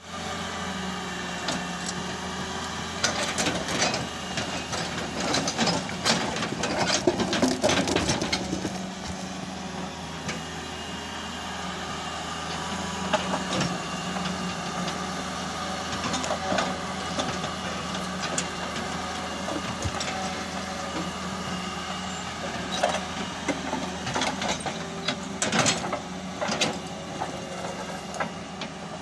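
Hitachi EX200 hydraulic excavator's diesel engine running steadily as the machine digs in broken rock, with sharp knocks and scrapes of stone against the steel bucket. The knocking comes in a dense flurry a few seconds in and again near the end.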